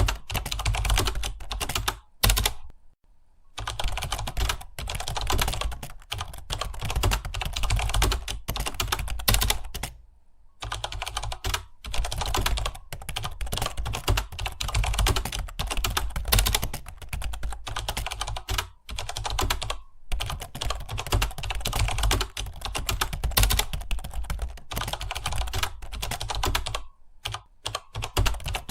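Fast, continuous typing on a computer keyboard, a steady patter of keystrokes broken by two brief pauses, about three seconds in and about ten seconds in.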